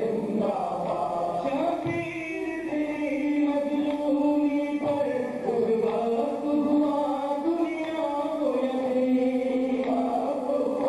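Noha, a Shia lament, chanted by a male reciter with a group of mourners joining in, in long held lines that step up and down in pitch.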